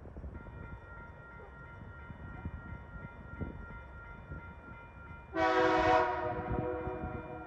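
Level crossing warning bells start ringing just after the start, as a steady ringing tone. Near the end, a TasRail TR class diesel locomotive gives one short, loud horn blast on its approach, which fades out over the following second.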